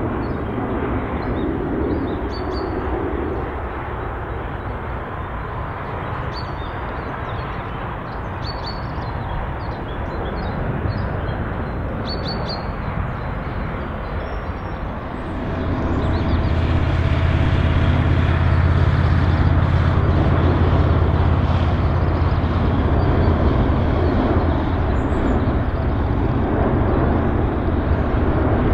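Jet airliner engines during landings: a steady rumble that grows much louder and deeper a little past halfway and stays loud.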